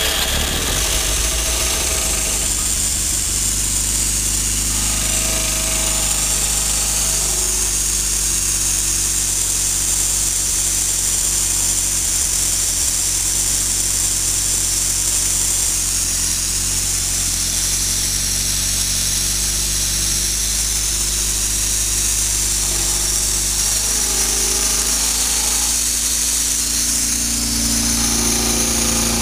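Ford 100E four-cylinder side-valve engine idling steadily, running on its own after being freed from seizure.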